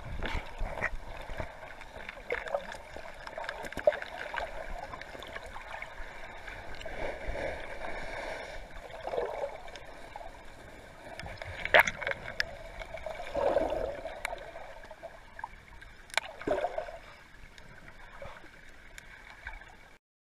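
Muffled underwater sound from a camera held beneath a river's surface: a steady watery rush with swelling, gurgling surges and a couple of sharp clicks or knocks. The sound stops abruptly near the end.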